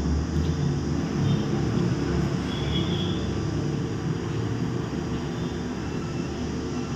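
A steady low rumble of background noise, engine-like, with no speech.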